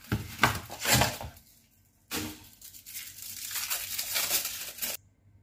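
A paper packaging wrapper being torn open and crinkled by hand: crackly tearing for the first second and a half, a brief pause, then a longer stretch of crinkling that stops abruptly near the end.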